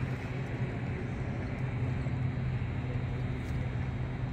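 A vehicle engine idling, a steady low hum, under a constant outdoor noise.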